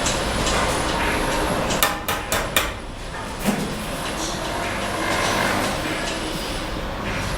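Sharp taps on cement brick, four in quick succession about two seconds in and one more a second later, as a brick is knocked down into its mortar bed, over steady site noise.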